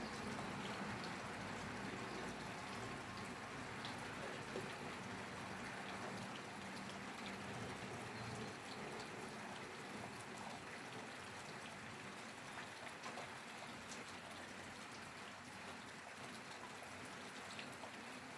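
Steady rainfall: an even hiss of rain with scattered individual drops ticking through it.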